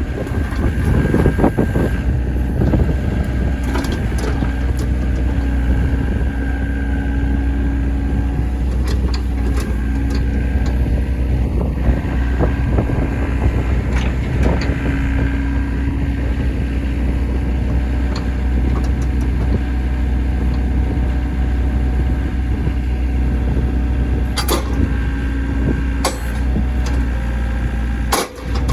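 Volvo ECR58 mini excavator's diesel engine running steadily, with a few sharp clicks or knocks near the end.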